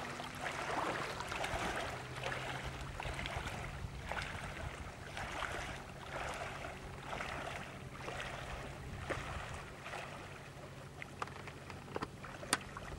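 Footsteps wading through shallow water, a soft splash with each step about once a second, over a low steady hum. A few sharp clicks near the end.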